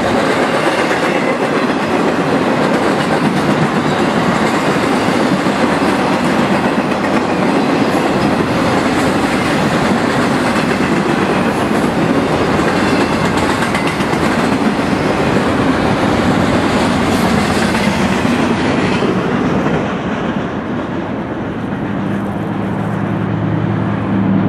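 Intermodal freight train's double-stack well cars rolling past, a steady loud clatter of wheels on rail. About twenty seconds in, the noise drops and loses its high end as the end of the train goes by. A low steady hum comes in near the end.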